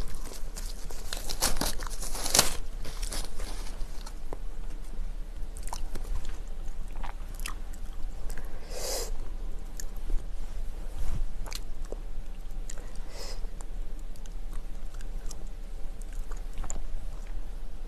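Long hair rustling and crackling in scattered bursts as it is gathered up by hand and tied back.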